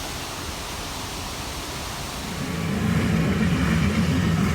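Steady rushing of a waterfall; a little over two seconds in, the low rumble of a pickup truck's engine and road noise comes in and gets louder.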